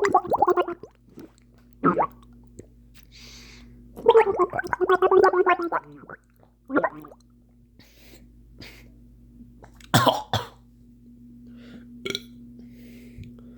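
A person making wet gurgling noises in the throat and mouth, in irregular bursts: a short one at the start, a longer bubbling run of about two seconds partway through, and shorter gurgles and a sharp cough-like burst later, over a steady low electrical hum.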